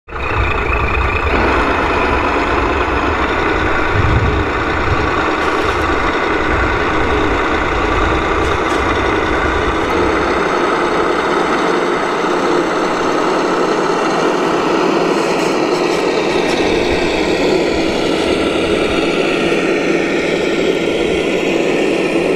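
Amewi Oshkosh M983 HEMTT 8x8 RC model truck running as it drives, a steady mechanical drone with a low rumble that drops away about ten seconds in.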